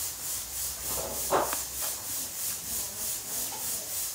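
A faint hiss that pulses evenly about twice a second, with one short noodle slurp about a second in.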